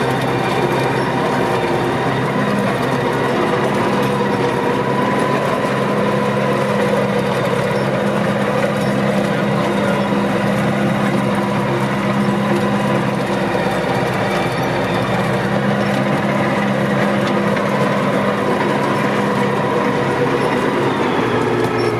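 Tractor engine running steadily as the tractor drives along, one even drone that holds its pitch throughout.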